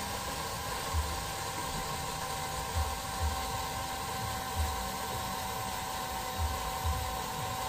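Deerma NU05 portable electric juicer's small motor running steadily with a high whine, spinning its blade through mango juice. Soft low knocks come every second or so.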